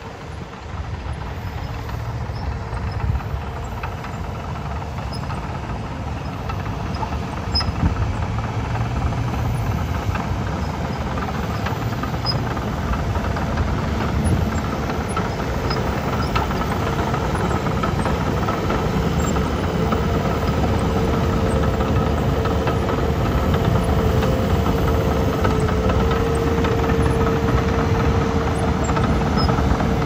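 Komatsu D51PX crawler bulldozer's diesel engine running under load while it pushes a pile of dirt, with its tracks clattering and a steady whine that strengthens past the middle. It grows louder over the first half as the machine comes closer.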